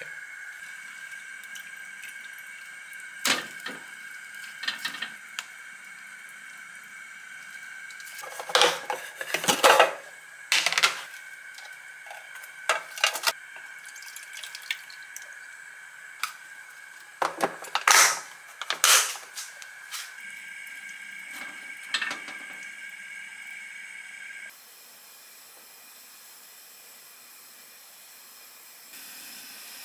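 Dishes and utensils clinking and knocking at irregular intervals, with a cluster of sharper clinks near the middle, over a steady high hum from a kitchen appliance that cuts off suddenly about three-quarters of the way through.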